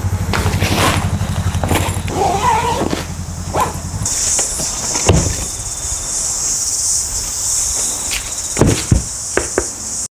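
An engine running with a fast, even pulse for the first few seconds. It is cut off abruptly by a steady high hiss with scattered knocks and thumps.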